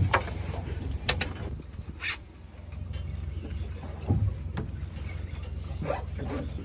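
Boat motor running with a steady low hum, with scattered knocks and clicks of gear on the boat.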